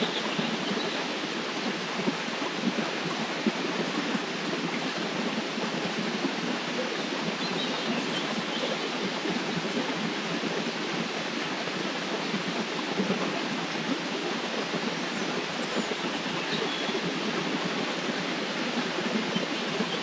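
Steady rushing and splashing of a flowing river, even and unbroken.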